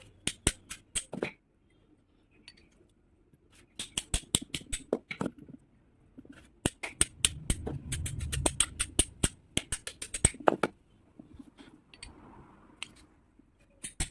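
Clusters of sharp metallic clicks and taps, several a second, typical of hand tools working on metal parts during a repair, with a low rumble about halfway through.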